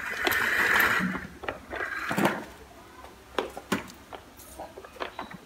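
A rustling scrape in the first second, then scattered light clicks and knocks from a plastic baby walker and its toy tray as a young monkey clambers over it and handles the toys.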